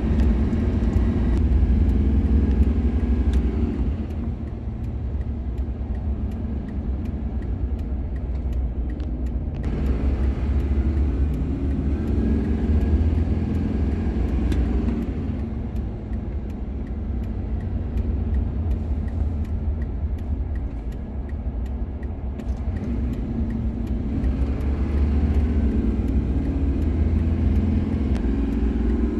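Cab-interior sound of a 2002 Chevy Silverado's 6.6 L Duramax V8 turbo-diesel driving at speed with road rumble, louder stretches under wide-open throttle alternating with quieter ones. The truck is being road-tested for a lack of power under load, with actual fuel rail pressure falling short of what the engine computer requests (code P1093).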